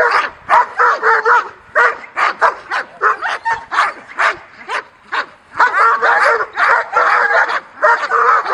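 Young German Shepherd barking rapidly, a few barks a second, as it is agitated by a protection-training helper and lunges on the leash.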